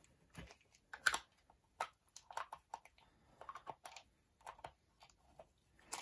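Light, irregular clicks and taps of hard plastic as hands grip and twist a hollow plastic toy egg capsule.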